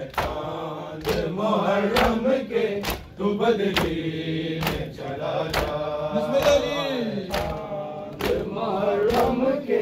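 Men chanting a noha in unison with sharp slaps of hands striking chests (matam) keeping a steady beat about once a second.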